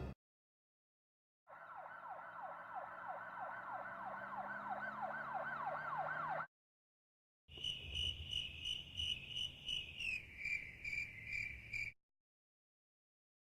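An electronic siren yelping, a fast rising sweep repeated several times a second for about five seconds. After a short pause comes a high-pitched electronic alarm beeping about twice a second, its pitch dropping a step partway through.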